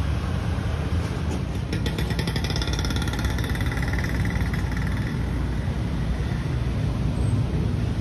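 Street traffic going by: a steady low rumble of car and motorbike engines, with a higher pulsing whine that comes in about two seconds in and fades out a few seconds later.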